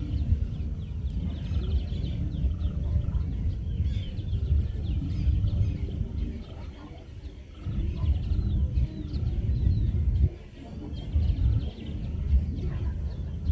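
Evening outdoor ambience: many birds chirping in quick, overlapping calls over a heavy low rumble that comes and goes. The rumble drops away briefly about halfway through and again about three-quarters of the way in.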